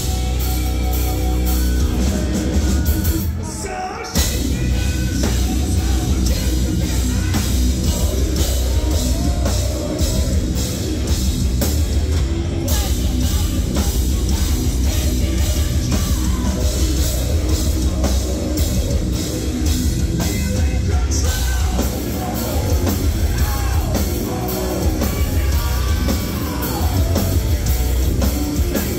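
Heavy metal band playing live: drums, distorted guitars and bass, with a singer's voice over them. About four seconds in the music briefly thins out, then the full band comes back in.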